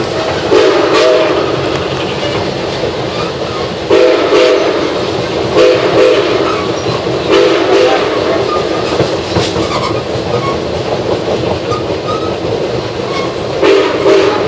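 Passenger train running at speed behind steam locomotive NKP 765, heard from the car's vestibule: a steady rolling rumble of wheels and rail, with louder bursts of wheel clatter every second or two.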